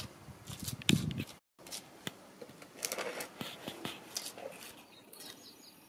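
Plastic spatula scraping and clicking against a cracked concrete floor as resin mortar is worked into the broken patch, in a run of short irregular scrapes. Birds chirp faintly near the end.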